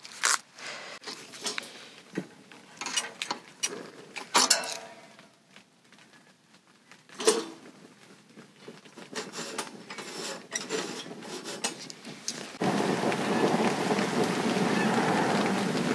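Scattered clicks and light metallic knocks from handling a kerosene heater and its lighter while getting it ready to light. About thirteen seconds in, a steady rushing noise cuts in suddenly and keeps going.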